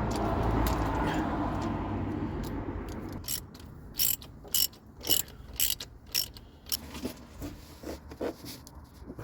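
A steady low rumble fades away over the first three seconds. Then a ratchet spanner clicks in short strokes, roughly two sharp clicks a second, as spark plugs are worked in the engine.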